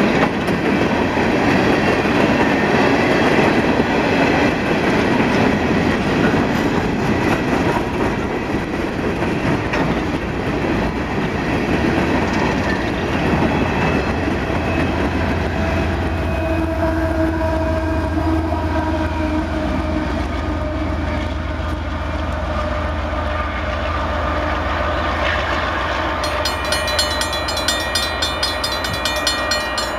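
Union Pacific coal train rolling past, its loaded hopper cars rattling and clicking over the rails. About halfway through, a diesel locomotive goes by with a steady low engine drone, and a few held tones sound over it.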